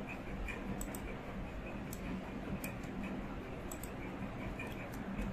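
Faint, irregularly spaced clicks over steady background hiss and a low hum.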